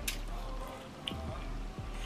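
Wet chewing and mouth smacks from eating a chicken wing close to the microphone, with a couple of sharp lip clicks, over background music.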